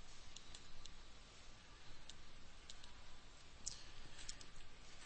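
Faint, irregular clicks and taps of a stylus pen on a tablet screen while handwriting a word.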